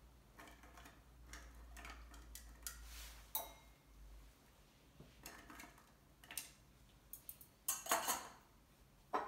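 Light, irregular clinks and taps of glassware and metal bar tools, with the loudest knocks about eight seconds in and once more just before the end.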